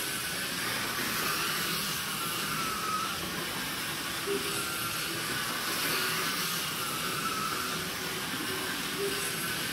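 Slot cars' small electric motors whining around the track, the pitch rising and falling as they speed up and slow for the corners, over a steady hiss.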